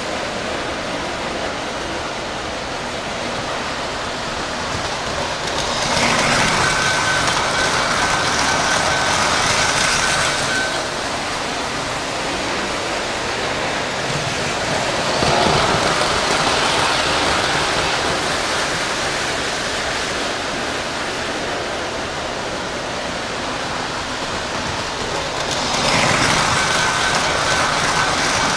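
O gauge three-rail model trains running on metal track, a steady rolling rumble that swells as a train passes close about six seconds in, briefly around the middle, and again near the end. A thin steady high tone comes with the first and last passes.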